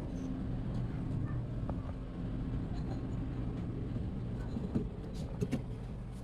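A steady low hum, with a few short sharp knocks and clinks about five seconds in.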